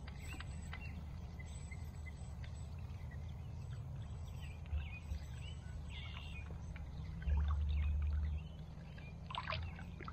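Steady low wind rumble on the microphone, louder for about a second some seven seconds in, with small birds chirping in the background. A brief splash of water comes near the end.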